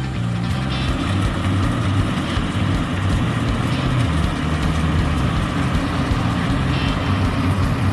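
Diesel engine of a rice combine harvester running steadily under working load.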